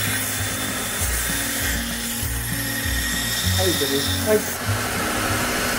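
Electric grinder running steadily as the forged steel knife blank is held lightly against it and ground into its base shape.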